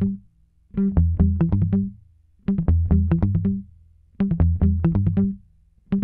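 Background music: four short phrases of quick, rhythmic notes on bass and guitar-like instruments, each about a second long with brief gaps between them.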